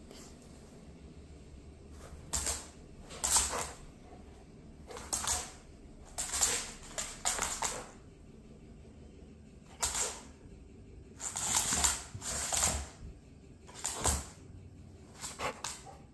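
Wirehaired pointing griffon snorting and sniffing in a series of short, noisy bursts, some single and some in quick clusters, with quiet pauses between.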